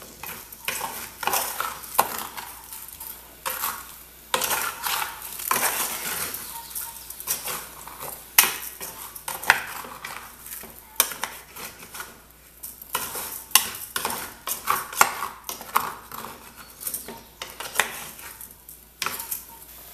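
Metal spoon stirring raw rice and pequi in hot oil in a saucepan, with irregular scrapes and clinks against the pan. The rice sizzles faintly as it fries before the water goes in.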